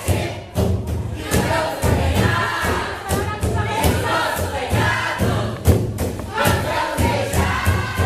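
A large group of young voices singing and shouting together over music with a driving low beat and sharp hits, like claps or drum strikes.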